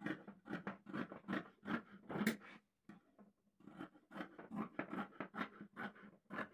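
Tailor's scissors snipping through folded layers of dress fabric, in quick repeated cuts of about four a second, pausing for about a second midway before the cutting resumes.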